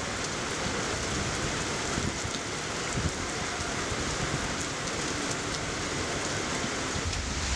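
Heavy rain pouring steadily onto paving and grass, a dense even hiss of splashing drops that cuts in suddenly from silence at the start.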